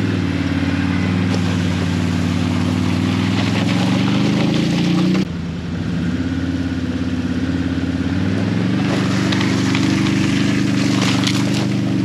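Can-Am Outlander 650 ATV's V-twin engine running steadily under load as it drags a tree stump on a chain, with a hiss of the log scraping over the gravel driveway. The engine sound breaks off abruptly about five seconds in and picks up again.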